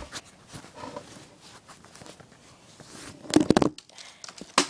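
Handling noise from a spring-powered airsoft rifle: a few faint ticks, then a loud burst of rattling clatter about three and a half seconds in, and a single sharp click just before the end.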